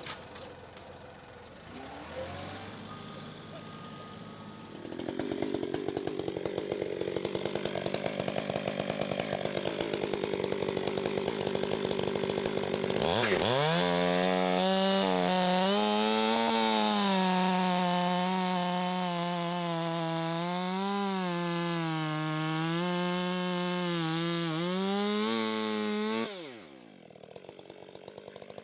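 Chainsaw bucking the end off a large log: the saw runs, then about halfway through goes to full throttle and cuts for over ten seconds, its pitch sagging and recovering as the chain bogs in the wood. Near the end the throttle is released and the engine falls back.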